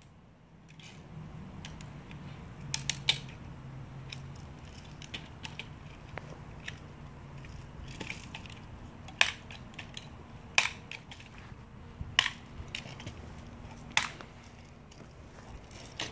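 Sharp clicks and snaps from a BB gun being cocked and fired, with the loudest five coming in the second half, a second and a half to two seconds apart, and softer handling clicks between them.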